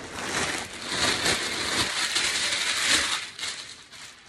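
Thin plastic shopping bag crinkling and rustling as a hand rummages through it, dying away near the end.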